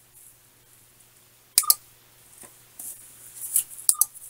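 5 V relay module switched by a 555 timer clicking twice in quick succession, pulling in and releasing, about every two and a half seconds. Each pulse briefly closes the contacts wired into a CB radio's controls to make it scan.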